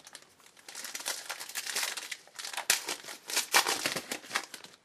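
Trading card pack wrapper crinkling as it is torn open and handled: a dense run of crackles with a few sharper, louder spikes, stopping just before the end.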